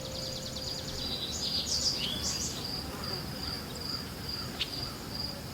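Crickets chirping in a steady high pulsing trill, with a few short bird chirps about one to two and a half seconds in.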